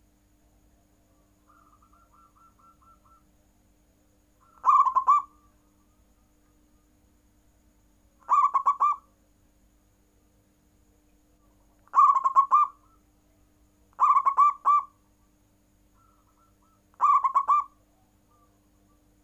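Zebra dove (perkutut) cooing its song: five short bouts of a few rapid rolling coo notes, spaced a few seconds apart. A fainter run of coo notes comes about two seconds in.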